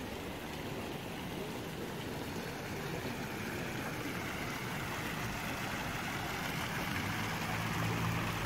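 Steady street noise with a vehicle engine running, growing slowly louder, and a low hum coming in near the end.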